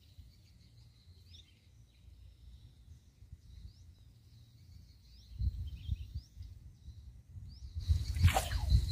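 Small birds chirping outdoors, short rising chirps repeated every second or so, over wind rumbling on the microphone in gusts. Near the end a sudden louder sound sweeps down in pitch.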